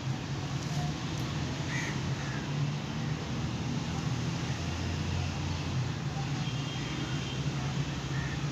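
A steady low mechanical hum over constant background noise, with a few faint bird calls.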